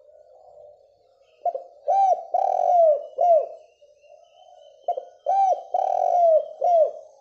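Spotted dove cooing: two phrases of four or five low, arched coos each, the second phrase starting about a second and a half after the first ends.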